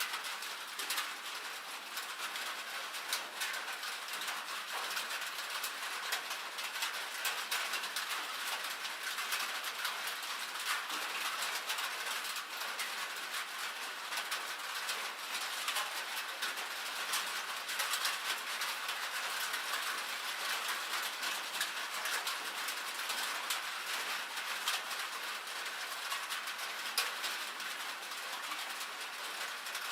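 Rain and hail pattering steadily on a metal roof: a dense, unbroken stream of small sharp ticks over a hiss.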